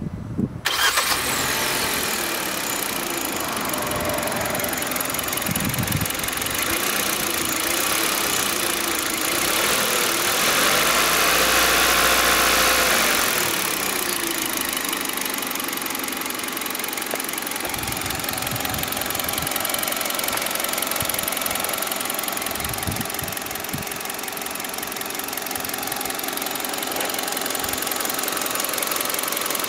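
A 2015 Kia Rio's petrol engine started remotely from the key fob: it fires up about half a second in and settles into a steady idle, heard close up in the open engine bay. It runs louder for a few seconds around the middle, then drops back to an even idle.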